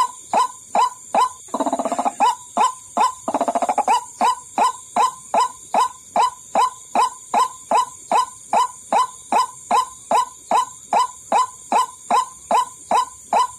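White-breasted waterhen lure call: short, sharp, downward-sliding notes repeated evenly, about two and a half a second, with two brief harsh rattling bursts a couple of seconds in. A steady high hiss runs under it.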